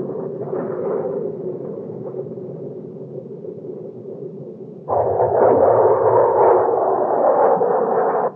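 Rumble of bombs bursting on the ground, then about five seconds in a sudden, much louder roar of an A-4 Skyhawk's jet engine as the attack jet flies past low. The roar cuts off abruptly.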